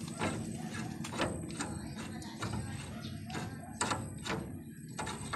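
Scattered sharp metal clicks and knocks, about six over five seconds, as a new steering tie rod end and its fittings are handled by hand, over a low steady background rumble.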